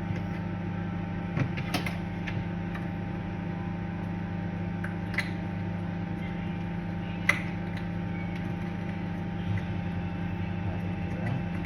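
Microwave oven running on high power with a steady hum. A few light clicks and knocks come over it, the sharpest about seven seconds in.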